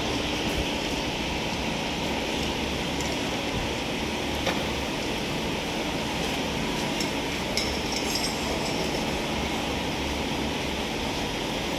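Steady machine-shop background noise, with a few light metallic clinks as small metal fittings under a can seamer's tooling plate are handled.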